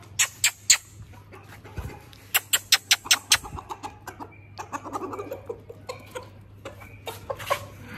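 A run of sharp, quick clicks, several rapid series of about five or six a second, among silkie chickens clucking softly as they feed.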